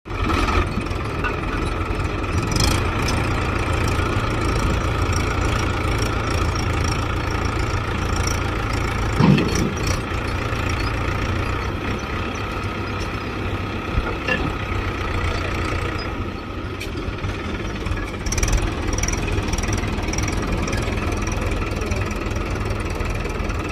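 Swaraj 843 XM tractor's three-cylinder diesel engine running steadily as the tractor pulls its trolley through shallow river water, with a few brief louder moments along the way.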